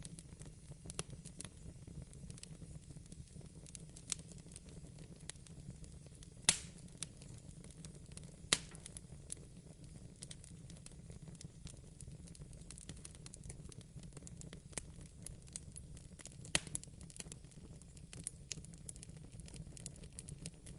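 Fireplace fire crackling: frequent small sharp pops over a low steady rumble, with louder pops about six and a half and eight and a half seconds in.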